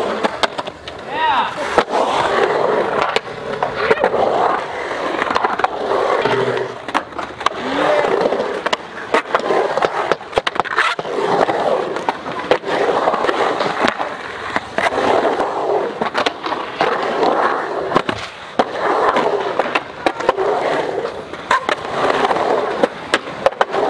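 Skateboard wheels rolling and carving through a concrete bowl, the rolling noise swelling and fading every second or two with each pass up and down the walls, broken by many sharp clacks of the board and trucks.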